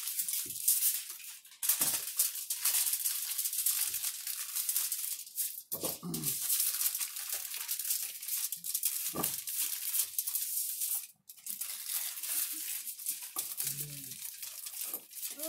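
Water running into a metal bowl in a kitchen sink as vegetables are rinsed by hand. The flow is steady, breaking off briefly twice.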